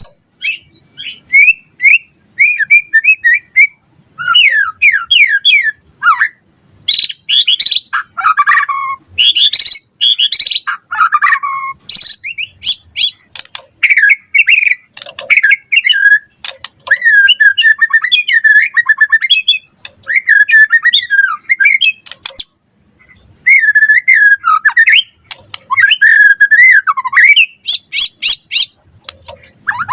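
White-rumped shama (murai batu) singing a long, varied song: rapid repeated notes, sweeping whistles and trills in quick succession with only brief pauses.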